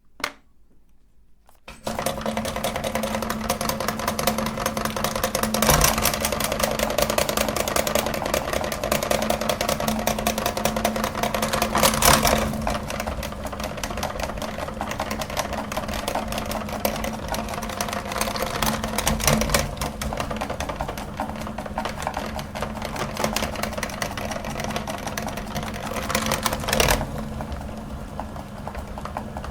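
Electric meat grinder switched on, its motor starting about two seconds in and running with a steady hum, while hard praline candy crackles and crunches as it is crushed and forced through. The crunching swells louder three times.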